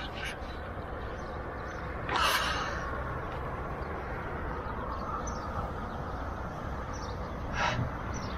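Steady outdoor noise beside a road, with a short, sharp burst of noise about two seconds in and a fainter one near the end.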